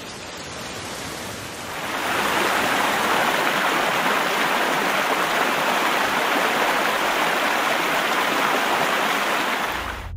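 A steady hiss of heavy rain, then about two seconds in a louder, steady rush of floodwater from a river in spate, which drops away near the end.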